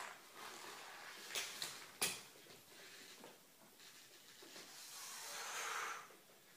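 Gymnast working on hanging gymnastics rings: a few sharp clicks and a knock from the rings and straps, the loudest about two seconds in, then a long, forceful breath out that stops abruptly near the end.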